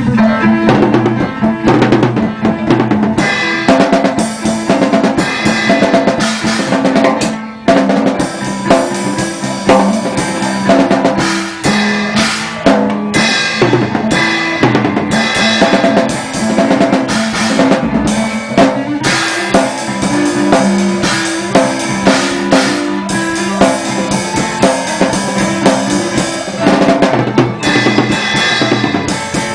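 Drum kit being played in a busy beat, many strikes without a break, with pitched notes stepping along underneath.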